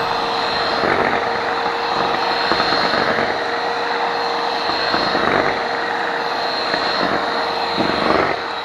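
Electric mixer running steadily at high speed, whipping cream in a bowl, with a constant motor whine and the beaters swelling in and out as they move through the cream. It cuts off abruptly at the end, once the cream is whipped stiff enough to hold its shape.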